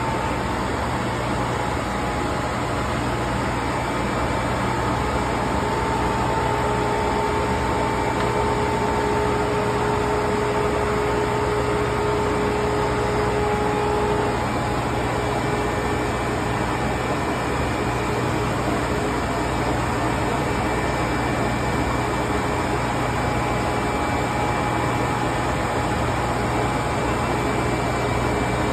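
Steady drone of industrial plant machinery running, with a few faint steady whining tones on top; one of the tones stops about halfway through.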